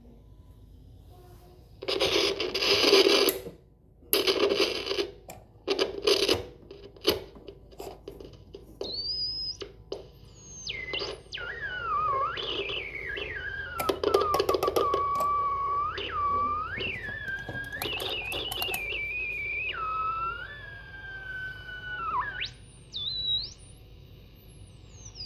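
Remco Caravelle toy radio receiver/transmitter: a few loud bursts of static in the first seconds, then a whistling tone that glides up and down in pitch as a front-panel knob is turned, swooping sharply at times, like a theremin.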